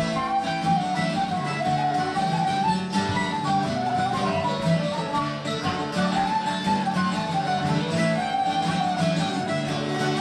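Instrumental background music: guitar with a melody line over steady chords.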